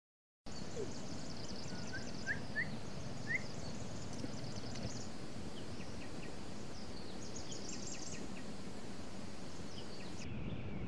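Rural outdoor ambience: insects chirring in repeated fast, high-pitched pulse trains over a steady low background hiss, with a few short rising bird chirps about two to three seconds in. Near the end the high chirring stops and a lower-pitched insect pulsing takes over.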